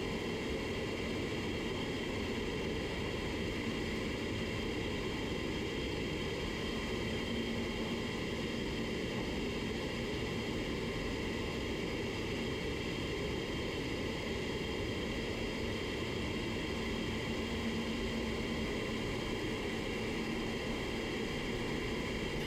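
Steady, unbroken rush of moving air with a low hum, typical of a paint spray booth's ventilation fans running.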